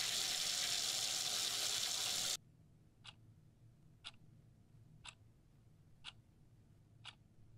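Water running steadily from a tap, cutting off abruptly a little over two seconds in. Then a clock ticking once a second, five even ticks.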